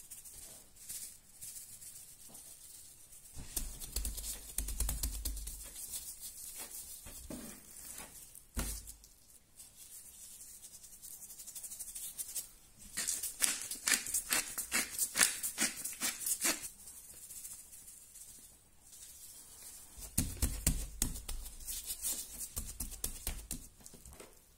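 Gloved hands sprinkling seasoning onto raw pork belly on a plastic cutting board and rubbing it into the meat. The result is a fast, wet, crackly patter in two longer bouts, one in the middle and one near the end, with a few soft thumps and a knock earlier.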